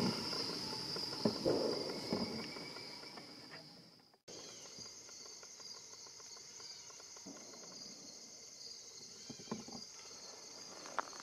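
Steady, high-pitched chorus of insects, with footsteps on a leaf-strewn trail in the first couple of seconds. About four seconds in the sound cuts out, then a quieter, pulsing insect chorus carries on.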